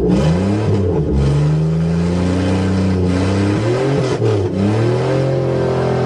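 Buick Regal engine revved with the accelerator pedal, heard from the driver's seat. The pitch climbs over about two seconds, dips about four seconds in, rises again and drops back near the end. The engine runs with the computer's ground plate freshly scraped clean of corrosion, which the owner believed had kept it from starting.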